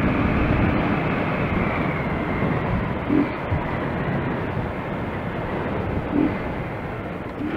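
Motorcycle on the move: wind rushing over the rider's microphone mixed with the engine running steadily, getting a little quieter toward the end.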